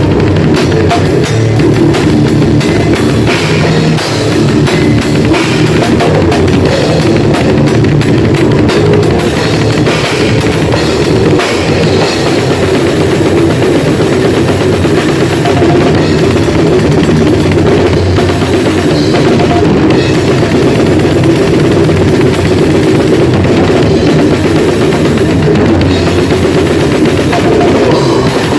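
A grindcore band playing loud and without a break: a drum kit hitting fast with bass drum and cymbals, under a dense wall of band sound.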